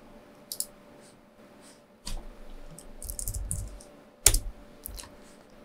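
Computer keyboard keystrokes and mouse clicks, scattered and uneven, with a quick run of keys about three seconds in and a sharper click a second later.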